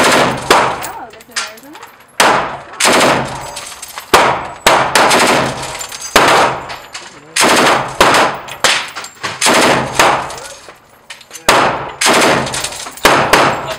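M249 Squad Automatic Weapon firing fully automatic 5.56 mm rounds in a series of short bursts of a few shots each, with brief pauses between bursts. Each shot rings out with a heavy echo off the walls of the indoor range.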